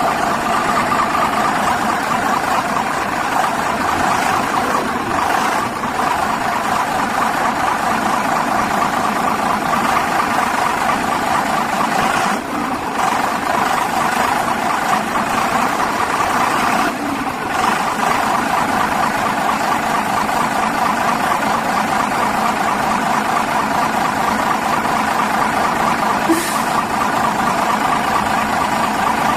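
Motor grader's diesel engine running steadily, with two brief dips in level about twelve and seventeen seconds in.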